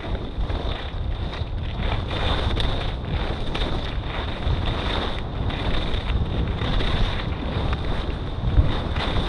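Wind buffeting the microphone of a chest- or helmet-mounted action camera as the skier runs at about 40 km/h, with the hiss and scrape of skis carving on packed snow swelling and fading through the turns. A thin steady high tone runs underneath.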